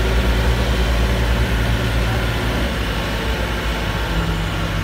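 Safari truck's engine running as it drives slowly along a dirt track, heard from inside the cab. The steady low drone changes note about a second and a half in.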